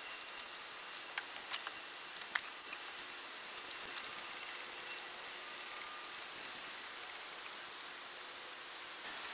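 Light clicks and taps of hand work on metal parts in a car's engine bay, a few in the first couple of seconds, over a steady hiss.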